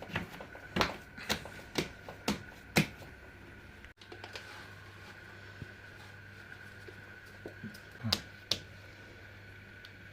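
Sharp knocks or taps: five about half a second apart, then a pause, then two more near the end, over a faint steady hum.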